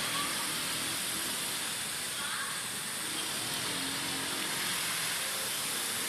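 ATV engine running steadily under a constant high hiss.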